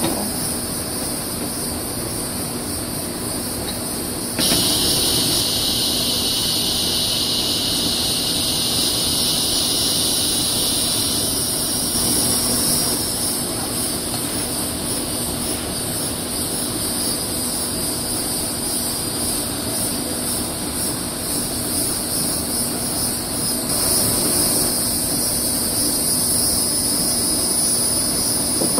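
Steady, shrill insect chorus, with a second, lower-pitched insect band joining abruptly about four seconds in and fading out about seven seconds later.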